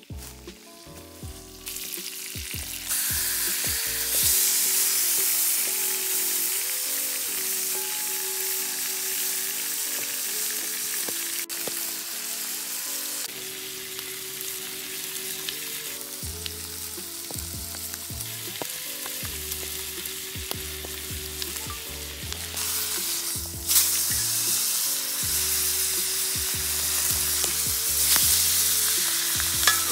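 Steaks sizzling in a hot cast iron skillet over a campfire. The frying hiss starts a second or two in, grows louder about three seconds in and again about three-quarters of the way through. Quiet background music plays underneath.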